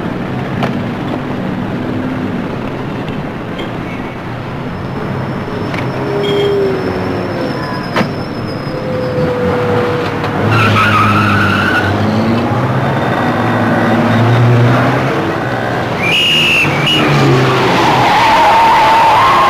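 Car-chase soundtrack of car engines revving hard, with tyres squealing about ten seconds in and again near sixteen seconds. A single sharp knock comes about eight seconds in, and the engines grow louder through the second half.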